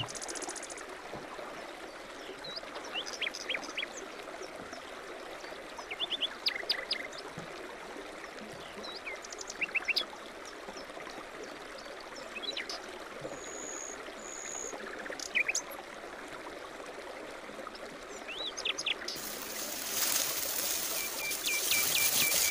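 A small forest stream trickling steadily, with birds chirping in short, scattered calls. Near the end a louder rustling of tall grass sets in.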